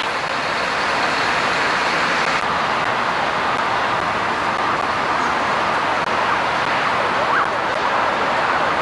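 Steady engine noise of heavy machinery: a mobile crane's diesel engine running while it hoists an armoured vehicle, with no separate knocks or clanks standing out.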